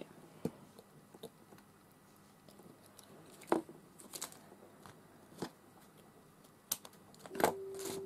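Handling noise from a craft desk: scattered taps and knocks of supplies and the crinkle of paper and card being picked up. A steady tone comes in near the end.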